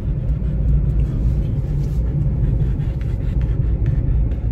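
Steady low rumble of a car driving, heard from inside the cabin: engine and tyre noise on the road from a Hyundai Grand i10 converted to run on CNG.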